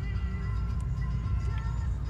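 Music with a simple melody playing over the steady low rumble of a car on the move.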